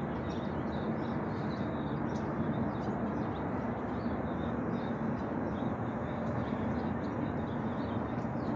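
Steady outdoor background rumble, with faint high bird chirps now and then.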